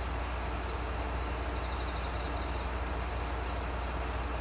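Tsugaru-21 diesel railcar idling while standing at the platform: a steady low engine hum that does not change. A brief, faint, high trill comes about two seconds in.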